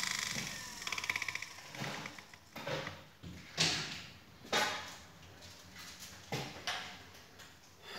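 A run of light, separate knocks and clacks of things being handled in a kitchen, with a brief quick rattle about a second in.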